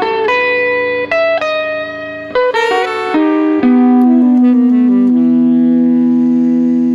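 Live electric guitar and tenor saxophone music: a quick run of single notes, then one long steady note held from about halfway through.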